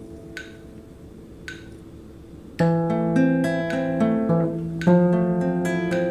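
Guitar music: a soft opening with a couple of light plucked notes, then fuller strummed chords come in much louder about two and a half seconds in.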